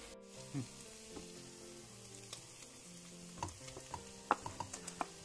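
Marinated turkey pieces sizzling in hot oil as they are scraped from a plastic tub into the pan with a wooden spatula. Several short sharp clicks of the spatula are heard, most of them in the second half.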